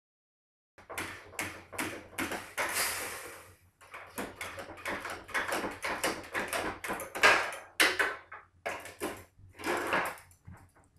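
Repeated sharp metal knocks and clanks from hand tools working on a window air conditioner's compressor and copper refrigerant lines, with a hiss of escaping Freon about two and a half seconds in, as the refrigerant pressure is let out.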